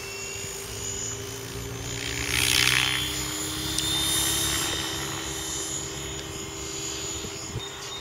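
Electric Mikado Logo 600 SE radio-controlled helicopter spooling up and lifting off, its motor and rotor whine rising slowly in pitch. A louder rush of noise swells and fades about two and a half seconds in.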